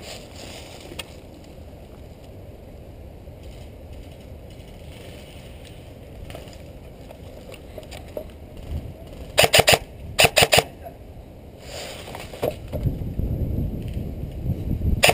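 Electric airsoft rifle firing two quick bursts of three or four shots about halfway through, with another shot near the end. A low rumbling noise builds in the last few seconds.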